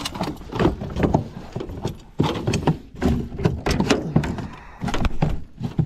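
A freshly landed pike thrashing in an aluminium boat: a run of irregular knocks and thumps against the metal hull.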